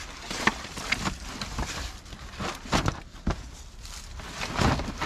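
Irregular knocks, scrapes and rustling as things are handled and put away by hand.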